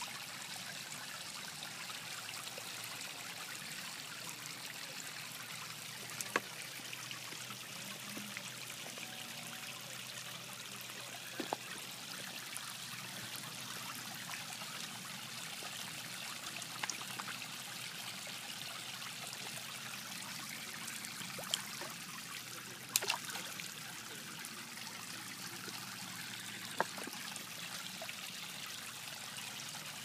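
Koi pond fountain running: a steady trickle and splash of water falling into the pond. A few brief clicks stand out at scattered moments.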